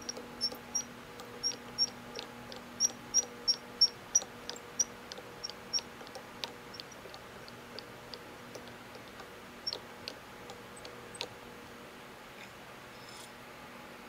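Short, high-pitched squeaks from a South Bend lathe's cross-slide as its handwheel is worked back and forth, irregular at about three a second, stopping about eleven seconds in. The gib is fitted without its shim, and the slide has too much play.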